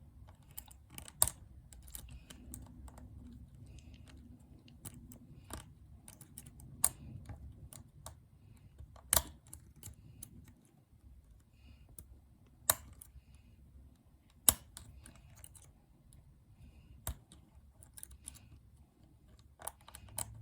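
Small sharp metallic clicks and ticks, irregular and a few seconds apart, as a lock pick and tension tool work the levers inside an Abus 234 60 mm lever padlock.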